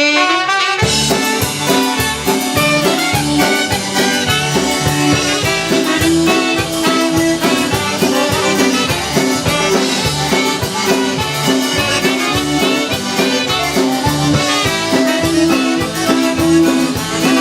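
Live band playing the instrumental introduction to an upbeat song, accordion carrying the tune over a steady drum beat.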